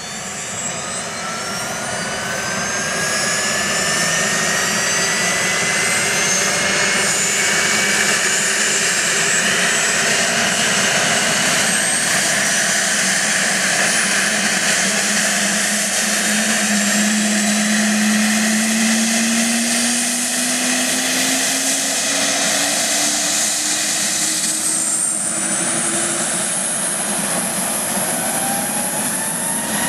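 Eurocopter AS 365 Dauphin helicopter starting up: its twin Turboméca Arriel turboshaft engines whine, rising in pitch as they spool up and the main rotor speeds up. A further high whine rises in about 25 seconds in.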